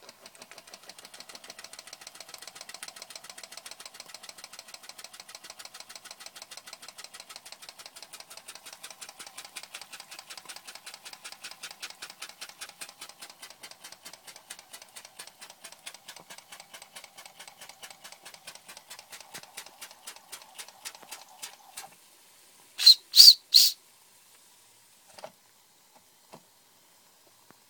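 Märklin toy steam engine with a vertical copper boiler chuffing in a rapid, even beat, the puffs growing weaker and then stopping abruptly. Soon after, three short, loud, shrill toots, followed by a few faint clicks.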